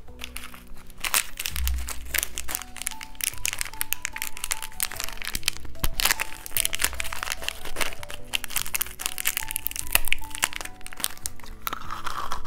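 Candy wrapper crinkling and crackling as it is unwrapped close to the microphone, a dense run of sharp crackles over background music.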